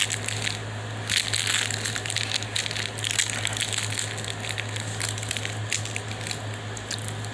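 Close, crackly rustling of a puppy's fur and the bedding rubbing against the phone's microphone as she wrestles with and mouths at a hand, with many small clicks, over a steady low hum.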